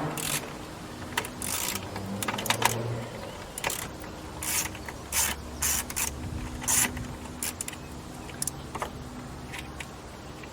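Irregular clicks and knocks of hand tools and parts being worked on in a car's engine bay while the coolant expansion tank's clips and screws are undone.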